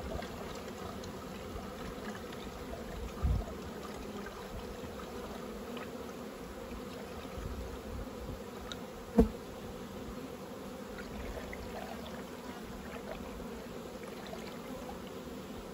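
Honeybees humming steadily over an open hive while sugar syrup trickles from a bucket into the in-hive feeder. A dull knock about three seconds in and a sharp click about nine seconds in.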